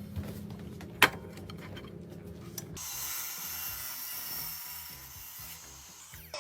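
Tools cutting into a wooden baseball bat: rough low scraping with one sharp knock about a second in, then, just before halfway, a sudden change to a steady high hiss of a bit cutting into the wood.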